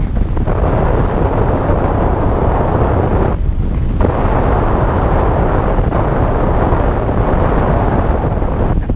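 Loud wind rush buffeting the onboard camera's microphone on a Heron RC motor glider in flight with its motor off, easing briefly about three and a half seconds in.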